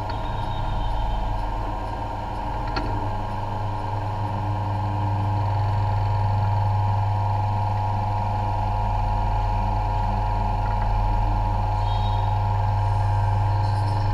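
A steady low machine hum with a constant higher tone above it, and one faint knock about three seconds in.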